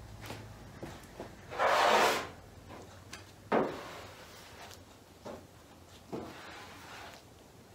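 Body filler spreader scraping and smearing filler across a steel hood: a loud scrape about two seconds in, a sharper one a little later, and a few softer strokes after.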